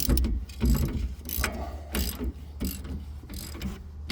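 Socket ratchet clicking in repeated strokes as the nut on a shock absorber mounting bolt is tightened, a click burst roughly every half second to second.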